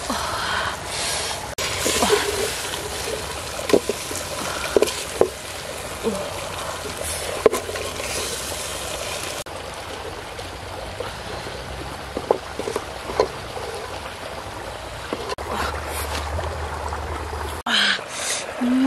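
Steady trickle of running water, with scattered short knocks and clicks.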